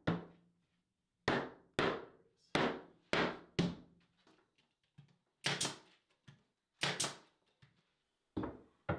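About ten sharp knocks on a wooden cabinet carcass as it is put together, irregularly spaced, each dying away quickly with a little room echo.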